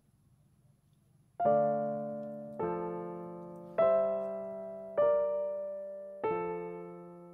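Background piano music: five slow chords, struck about once every second and a bit, each ringing and fading before the next. It begins about one and a half seconds in, after a faint near-quiet start.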